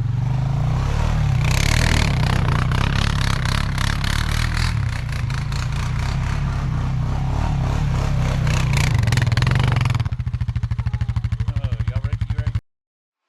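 Four-wheeler (ATV) engine running under way, then dropping to an even, pulsing idle about ten seconds in; the sound cuts off suddenly near the end.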